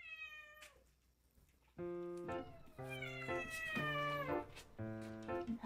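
A kitten meows once at the start, a short call falling in pitch. About two seconds in, background music begins, and a longer kitten meow sliding slowly downward sounds over it.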